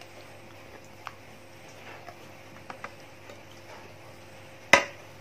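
Faint ticks and clicks of raw chicken fillets being handled and pressed into a plastic tub of marinade. One sharp, loud knock near the end as dishware is set down on the table.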